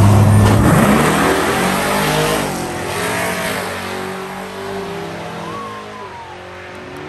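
Drag-racing vehicle launching hard, its engine revving up with the pitch climbing in steps as it accelerates away, then fading steadily as it gets farther off.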